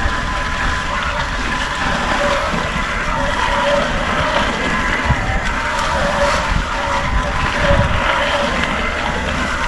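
Riding noise of an electric mountain bike on a dirt singletrack: steady wind rush on the microphone and tyres rolling over the ground, with a faint steady whine and a couple of low thuds over bumps.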